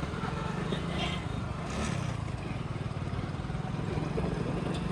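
Motorcycle engine running steadily while riding, with a low pulsing drone and road and wind noise.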